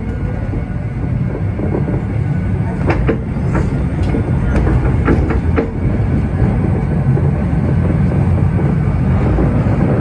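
MBTA Red Line subway train running on the rails: a steady low rumble that grows louder, with a few sharp clicks from about three to six seconds in.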